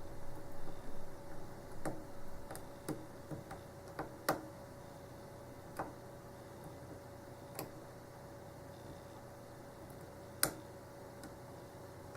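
Small, sharp metallic clicks as a hook pick lifts the serrated pins of an American A1100 aluminium padlock held under tension, each serration catching at the shear line. The clicks come singly and irregularly, a second or more apart, two of them louder than the rest.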